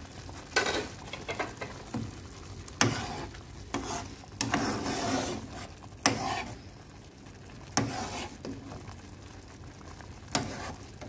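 Metal spoon stirring a thick cream sauce in a nonstick pan, scraping and knocking against the pan about eight times, over the sauce bubbling on the heat.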